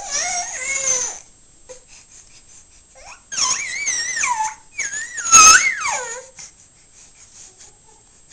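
A dog making high, wavering whining vocal noises in three spells: about a second at the start, then two longer warbling spells starting around three and five seconds in.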